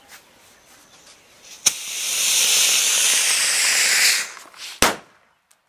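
Diwali anar (flower pot fountain firework) catching with a sharp click about a second and a half in, then hissing loudly as it sprays sparks for about two and a half seconds before dying away. A single sharp pop follows just after.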